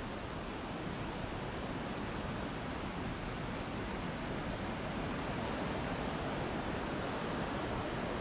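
Steady rush of a mountain stream's flowing water, an even hiss without breaks.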